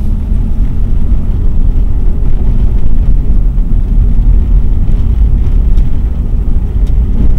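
Mercedes-Benz W126 on the move, heard from inside the cabin: a steady low rumble of engine and road noise.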